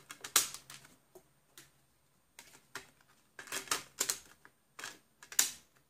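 DVD discs being pressed down onto the plastic hubs of an open digipak case: sharp plastic clicks and taps in several short clusters, with quiet gaps between.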